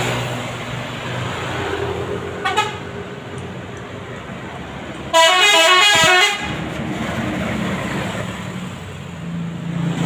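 Bus 'telolet' horn, a Basuri V3 multi-tone electric horn, playing a quick warbling tune for just over a second, the loudest sound, over steady road traffic noise. A shorter, fainter horn tone sounds about two and a half seconds in.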